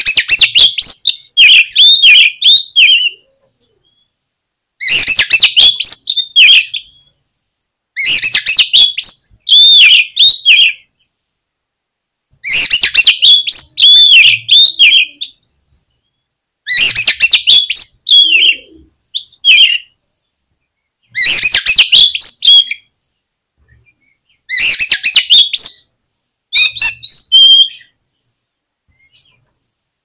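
Oriental magpie-robin (kacer) singing loudly in repeated bouts of rapid, varied whistles and harsh chattering notes, each bout two to three seconds long with a short pause before the next.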